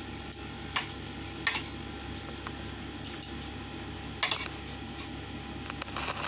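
Spoon and fork clicking and scraping against a plate a handful of times during eating, the loudest knock about four seconds in, over a steady background hum.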